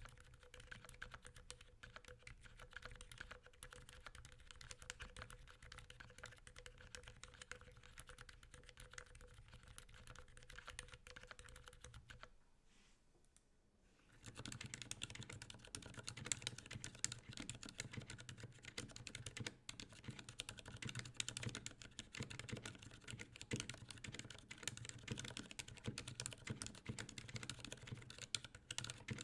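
Steady fast typing on a keyboard with Cherry MX Silent Black linear switches, muted clacks. The first part is the lubed board with case and plate foam and lubed Durock stabilizers; after a short pause about 13 seconds in, typing resumes, louder, on a stock Cherry MX Silent Black board.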